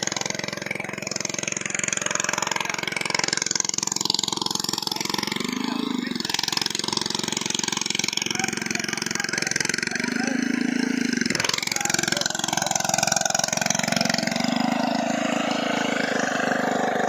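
A small engine running steadily, swelling briefly three times, with a sharp click about two-thirds of the way through.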